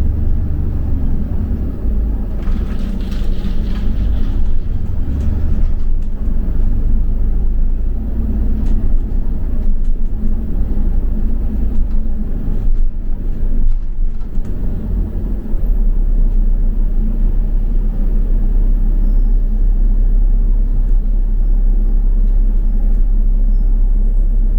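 Engine and road rumble of a double-decker bus on the move, heard from inside, with a brief hiss about two and a half seconds in. From about fifteen seconds in, a steady deep drone takes over.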